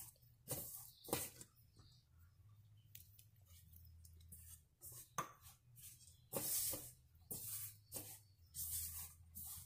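Fingers rubbing and squeezing ragi (finger millet) flour in a stainless steel bowl as water is worked in a little at a time: faint, irregular rustling strokes with a few light clicks against the bowl.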